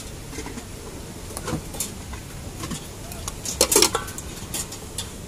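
Steel ladles and spoons clinking and scraping against steel bowls and plates while curd is served onto a kachori. Scattered clinks, with the loudest cluster a little past halfway.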